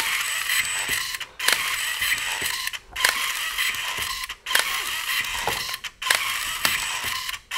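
Electric automatic cable tie gun (HellermannTyton Autotool 2000 CPK) cycling again and again, about five cycles each roughly a second and a half long with a short break between them. Each cycle puts a cable tie around a wire bundle, tensions it and cuts it off.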